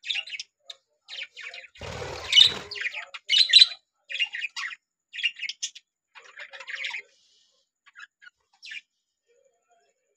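Budgerigars chirping and chattering in quick bursts of high chirps, thinning out to a few calls near the end. A brief rustling noise comes about two seconds in.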